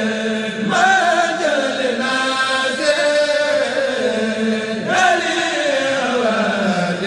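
Chanting: a voice singing long, held, sliding lines without a break, with a quick swoop up and back down about a second in and again about five seconds in.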